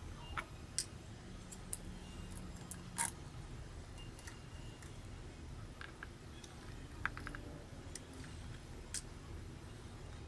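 Scattered small clicks and taps from a precision screwdriver working on a Nikon Coolpix AW110 compact camera and its plastic body being handled during disassembly. The sharpest click comes about three seconds in, with a quick cluster about seven seconds in, over a faint steady low hum.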